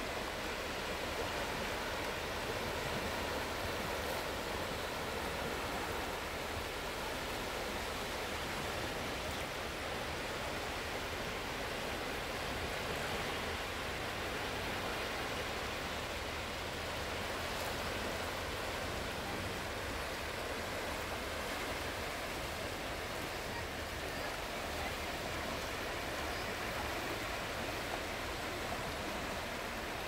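Gentle Baltic Sea surf: small waves breaking along a shallow sandbar and washing over the shallows in a steady, even hiss.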